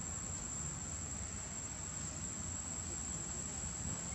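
Forest ambience: a steady high-pitched insect drone over an even low rumble.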